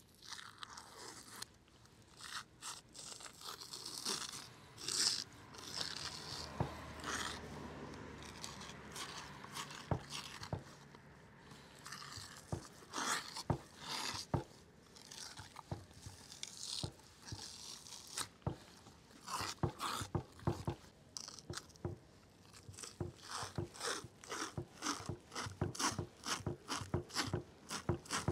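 Raw beef liver being worked by hand on a wooden cutting board, its thin outer membrane peeled away: wet, sticky peeling and rustling, broken by many sharp taps and knocks on the board, which come in a quick run near the end.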